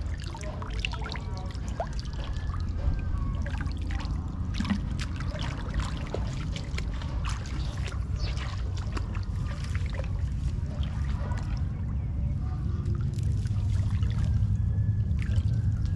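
Water trickling and splashing, with many small sharp splashes over a steady low rumble.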